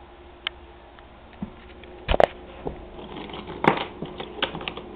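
Toy trains running on the track: a faint steady motor hum under irregular clicks and knocks, the loudest about two seconds in and again near four seconds.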